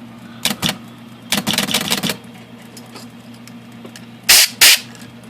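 IBM Selectric II typewriter with its motor humming steadily while the sticky shift and rotate mechanism clacks and rattles in short runs, about half a second in and again between one and two seconds in. Near the end come two short, loud hissing sprays, solvent being blasted into the gummed-up shaft to flush it.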